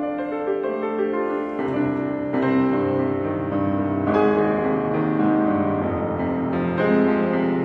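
Yamaha grand piano played solo, many overlapping sustained notes in a slow contemporary classical piece. About one and a half seconds in, low bass notes come in and the playing grows fuller and a little louder.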